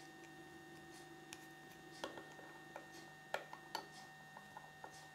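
Small hard-plastic Kinder Surprise toy pieces clicking and tapping against each other as they are handled and fitted together. A scattering of light clicks, loudest a little over three seconds in, over a faint steady hum.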